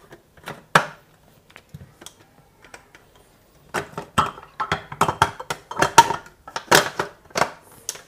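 Clear plastic bowl and lid of a mini chopper clicking and knocking as they are seated and twisted to lock onto the motor base. The clicks come sparsely at first, then thick and fast in the second half.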